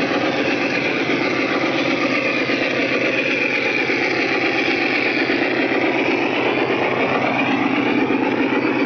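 Large-scale model freight train, led by MLW diesel locomotives, running past on the track: a steady rolling rattle of wheels on the rails with motor hum.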